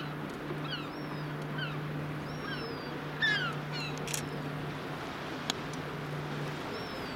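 Birds calling in quick short falling notes, with a few thin falling whistles, for the first few seconds, over a steady low boat-engine hum from the water that fades out near the end. A few sharp clicks sound, the loudest about three seconds in.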